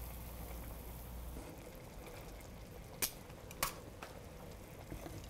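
Reduced soy and ginger sauce simmering quietly in a frying pan over lowered heat as chicken thigh pieces cook in it. Two sharp clicks come about three and three and a half seconds in.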